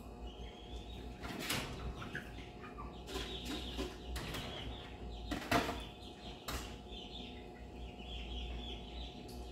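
Twelve-day-old basset hound puppies squeaking and whimpering in short, thin, high cries, over and over. A few brief knocks and rustles of handling break in, the loudest a little past halfway.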